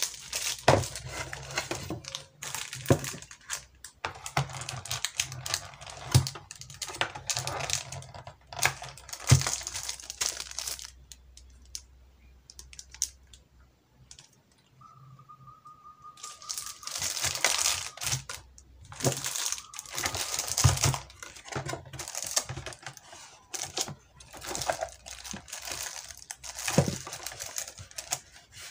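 Plastic bags crinkling and cardboard packaging being handled, with scattered light knocks and rustles. There is a quieter lull about halfway through, then a brief steady tone.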